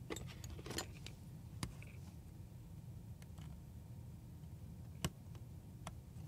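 Scattered light clicks and taps of small tools and camera parts being handled during a camera teardown, about six in all, the sharpest about five seconds in.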